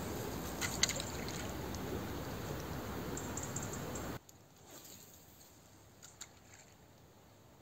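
Steady outdoor background noise of river flow and wind that drops abruptly much quieter at a cut about four seconds in, with a few faint clicks.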